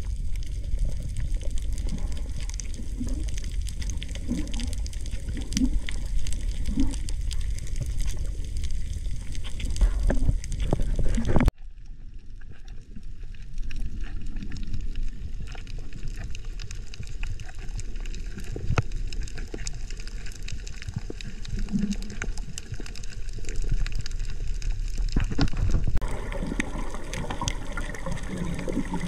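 Muffled underwater sound picked up by a submerged camera: a steady low rumble of water with scattered clicks and crackles, and a few brief low gurgles. The sound changes abruptly about a third of the way in and again near the end.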